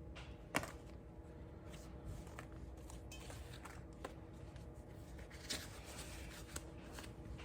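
Hands handling a scooter's rear brake caliper parts while greasing the slide pins: light rustling and small metal clicks, the loudest a sharp click about half a second in, over a faint steady hum.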